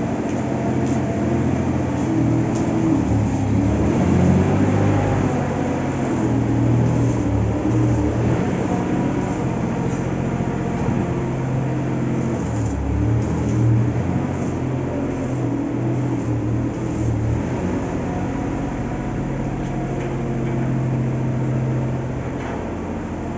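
Steady low machine hum over a hiss, its low tones shifting now and then.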